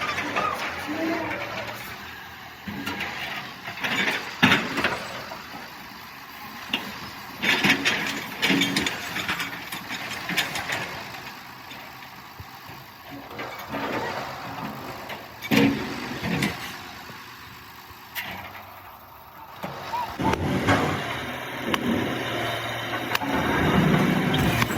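A vehicle engine running, with irregular sharp knocks and thuds every few seconds.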